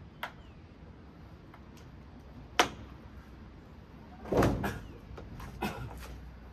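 A few separate sharp knocks and clatters of hard objects being handled: a single sharp knock about two and a half seconds in is the loudest, a longer, heavier clatter follows near four and a half seconds, and a few lighter clicks come after it.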